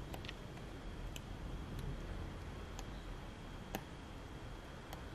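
Pages of a paperback comic book flicking past the thumb, giving a few faint, scattered ticks over a low steady room hiss.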